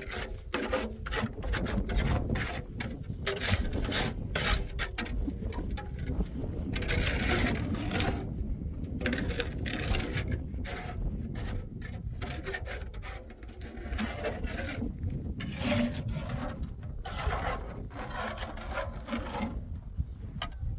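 Irregular scraping and rubbing strokes over a steady low rumble of wind on the microphone.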